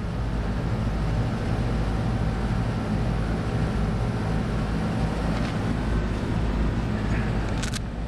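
Carrier rooftop air-conditioning unit running in cooling, its compressors and condenser fan going with a steady hum and low drone.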